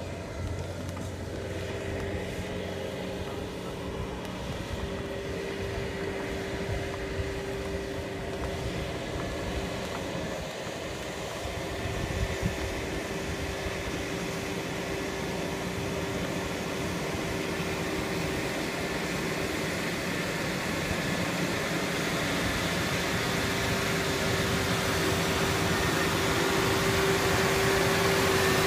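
A 100 hp rubber-tracked paddy tractor's engine running steadily under load while its rotary tiller churns through flooded mud, with a steady whine over the engine hum. It grows steadily louder as the tractor comes closer.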